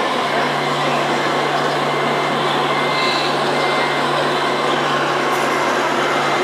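Radio-controlled scale Volvo FH tractor-trailer driving slowly, its sound module giving a steady truck-engine drone over an even background noise.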